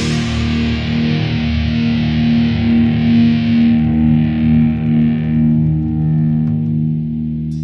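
Outro music: a distorted electric guitar chord held and ringing out, its brightness slowly dying away.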